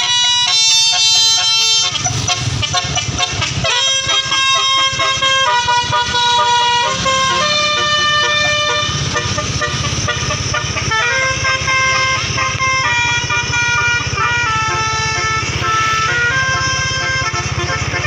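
Telolet horn on an Indonesian bus, a set of electric air horns playing a tune in held, stepping notes, over the bus's engine running.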